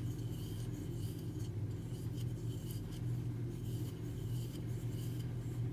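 Faint, irregular soft rubbing of yarn being drawn over a 6 mm crochet hook as chain stitches are worked, over a steady low hum.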